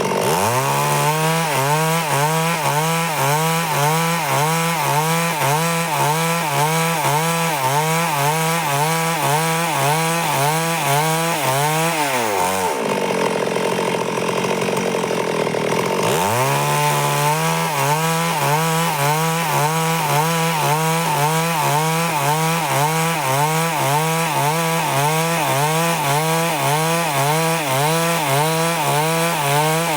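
Stihl chainsaw run at full throttle through wood in two long cuts, ripping boards from a log. Its pitch wavers up and down in a steady rhythm under load. It drops back to idle for a few seconds about twelve seconds in, then revs up again.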